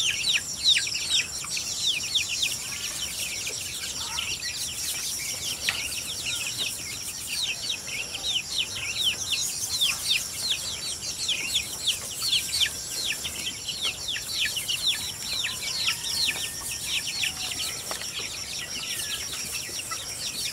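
A flock of young chickens peeping: many short, falling cheeps overlapping without a break. A steady high drone lies underneath.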